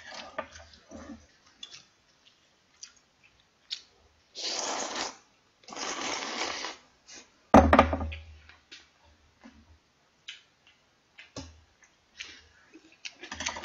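Clam knife-cut noodles (bajirak kalguksu) slurped in two long noisy draws, followed by a sharp knock, the loudest sound, and then scattered small clicks of chewing and utensils.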